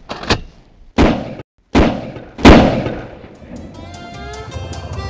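Pump-action shotgun fired three times into the air, a little under a second apart, each shot followed by a short echo and the last the loudest, after a sharp click about a third of a second in. Music with a steady beat fades in after the last shot.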